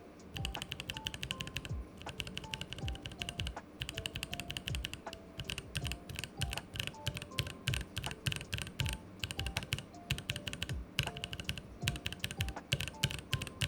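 Mechanical keyboard clacking in quick runs of key presses with short pauses between them. The keyboard is a GMMK Pro with an aluminium plate and lubed JWK T1 67g tactile switches. Soft background music plays underneath.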